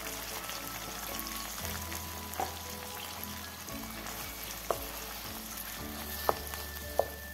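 Tomato sauce with shallots and cherry tomatoes sizzling steadily in a nonstick pan, stirred with a spoon that knocks sharply against the pan four times in the second half.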